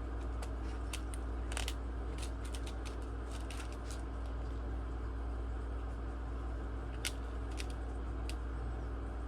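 Tiny laptop screws and small hand tools being handled, giving scattered light clicks and ticks at irregular moments, one a little sharper about seven seconds in, over a steady low hum.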